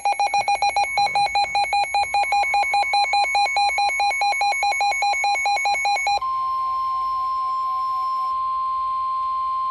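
NOAA Weather Radio emergency alert: rapid electronic alarm beeping, about eight beeps a second, over the steady single-pitch warning alarm tone, which comes in about a second in. The beeping stops about six seconds in and the warning alarm tone carries on alone.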